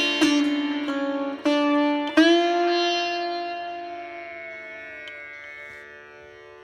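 Background music on a plucked string instrument. A few plucked notes with a slide come in the first couple of seconds, then one long note slowly fades away.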